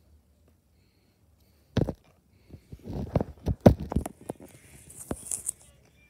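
Close handling noise from hands on the phone and a plush toy: quiet for about the first second and a half, then a sharp knock, followed by a run of taps, clicks and rustling scrapes.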